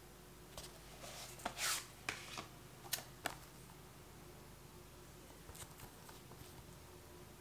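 Faint handling of a cardboard slipcover and a clear plastic disc case: a few light scrapes and clicks in the first few seconds, one a brief rasping slide. Then mostly low room hum with a few soft ticks.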